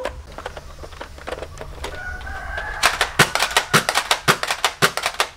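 X-Shot Excel Xcess foam dart blaster working and firing, a rapid run of sharp plastic clicks and snaps starting about halfway through. A brief thin whistle-like tone comes just before the clicks.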